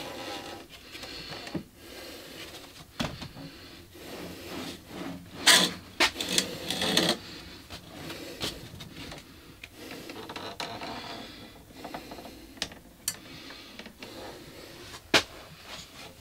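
Hand handling of a belt grinder's abrasive sanding belt and its wheels, motor off: irregular rubbing and scraping with scattered clicks and knocks, a loud run of scrapes about halfway through and a sharp click near the end.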